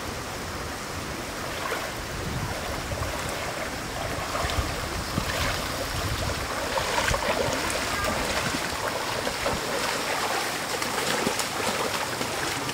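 Rubber boots wading through shallow floodwater: repeated sloshing splashes over a steady rush of water, the splashes coming more often from about four seconds in.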